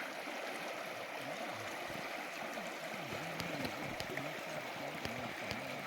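The Hoh River flowing: a steady rush of moving water, with a few faint ticks about halfway through.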